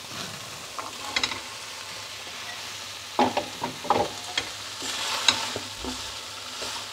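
Kidney and black beans tipped into a pan of sizzling capsicum and spices, then stirred in with a wooden spoon: a steady light sizzle with scattered scrapes and knocks of the spoon against the pan.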